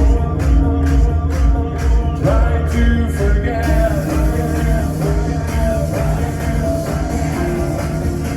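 Live band performing a synth-pop song with singing. A kick drum pulses about twice a second, and about four seconds in a bright cymbal wash comes in.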